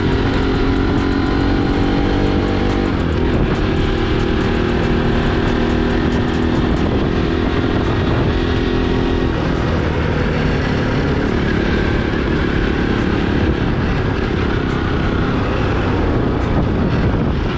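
Motorcycle engine running steadily under way, its even drone set against a constant rushing noise.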